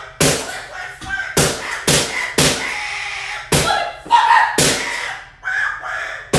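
A series of about seven loud slaps and thuds, spaced irregularly a few tenths of a second to about a second apart. Each hit echoes in a room, and a voice cries out between some of them.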